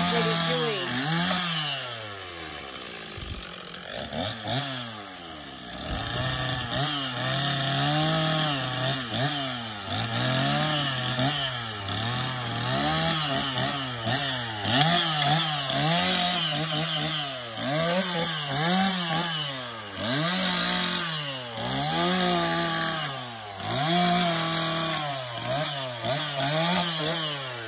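Two-stroke gas chainsaw cutting through felled tree limbs, revved up for each cut and dropping back about every two seconds, with a quieter spell near idle a few seconds in.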